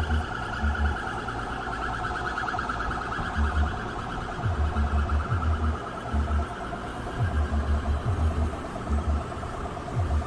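An alarm siren sounding continuously at the fire: a fast-pulsing tone whose pitch slowly rises and falls, over groups of repeated low thumps.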